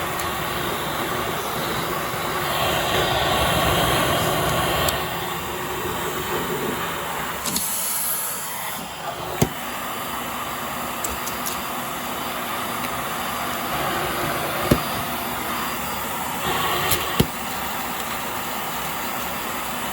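Hoover Air Steerable bagless upright vacuum cleaner running steadily while vacuuming carpet, with three short sharp clicks.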